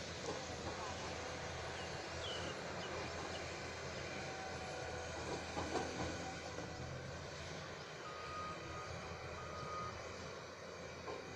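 Heavy earthmoving machinery, an excavator and dump truck, running steadily with a low rumble, with a few metallic clanks about halfway through and two short beeps near the end.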